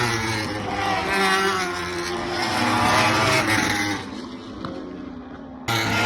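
Racing motorcycle engines at high revs, the pitch climbing and dropping as the bikes accelerate and shift. It turns quieter and duller about four seconds in, then jumps back to full loudness suddenly near the end.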